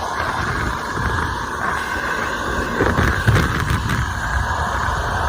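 Dryer-vent cleaning blower running steadily, with air rushing out through the dryer duct, a few knocks partway through and wind buffeting the microphone.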